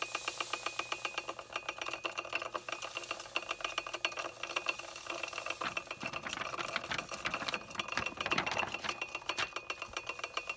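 Large magnetic stir bar spinning in a glass beaker on a hot plate stirrer, rattling against the glass as a fast, even clicking. After about six seconds the rattle turns looser and less regular.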